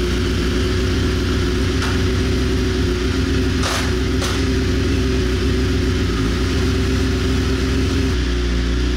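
BMW S1000RR's inline-four engine running steadily at a low, even speed with the transmission in gear and the rear wheel spinning on a stand, warming the oil before it is drained. The note shifts slightly near the end.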